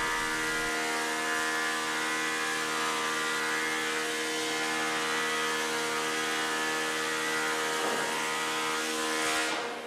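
Wood planer running steadily as red oak boards are planed: a constant hum with an even hiss over it, falling away near the end.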